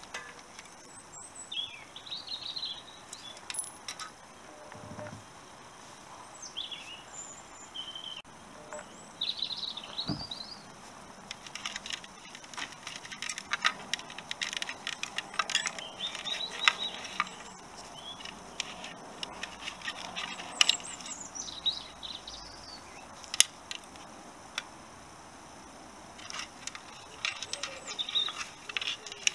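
Small birds chirping on and off, with scattered sharp clicks and rattles from plastic wiring connectors and cables being handled and pulled inside a motorcycle headlight shell; the clicks come thickest in the middle and again near the end.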